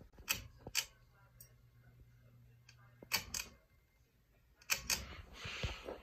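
Hampton Bay Huntington ceiling fan's pull-chain switch clicked three times, each pull a pair of sharp clicks, starting the fan. A low steady hum runs between the first and second pulls, and a soft rush of moving air comes in near the end.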